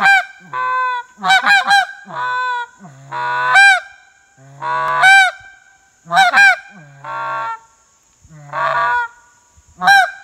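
S2Calls "Goat" goose call, cocobolo wood top with an acrylic bottom, blown by mouth in a run of goose honks. Longer, steadier notes alternate with short sharp honks that crack up and back down in pitch, some in quick groups of two or three, with short pauses between.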